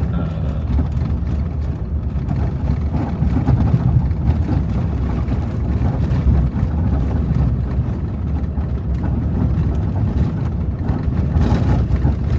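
A vehicle driving along a sandy dirt road, heard from inside: a steady low rumble of engine and tyres.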